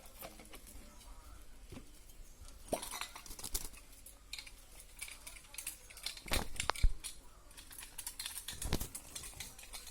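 Light scratching and clicking from a pet parrot, with a few louder knocks about three, six and a half, and nine seconds in.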